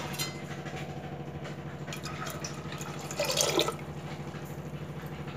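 Water being poured into a pressure cooker, splashing over soaked grain and lentils, with a louder pour about three seconds in.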